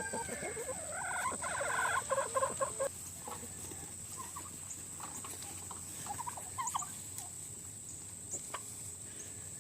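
Turkey gobbling, a rapid warbling call about a second in that lasts about two seconds, then scattered short calls from the farm poultry.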